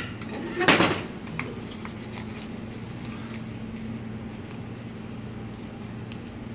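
A short scrape about a second in, from a metal spoon working sauce out of a small ceramic bowl into a paper piping cone. After it comes a steady low hum with a few faint ticks while the paper cone is folded shut.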